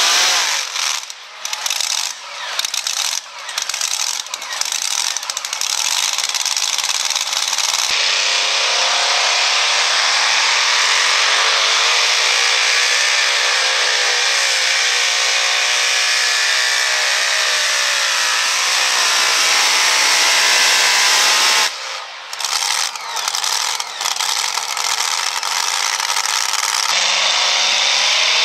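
Super modified two-wheel-drive pulling-truck engines, exposed supercharged V8s, revving hard. The sound comes in short choppy bursts near the start and again about three-quarters through, and runs steadily at high revs in between, the pitch wavering up and down for several seconds.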